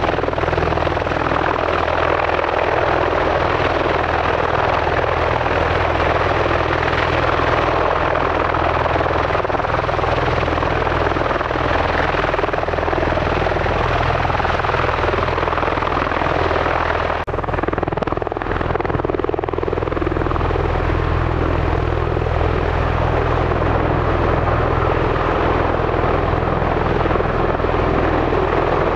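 Bell Boeing V-22 Osprey tiltrotor with its Rolls-Royce T406 engines and proprotors running: a loud, steady rushing rotor noise over a deep, even hum. About seventeen seconds in, the higher hiss drops away suddenly while the low rotor sound carries on.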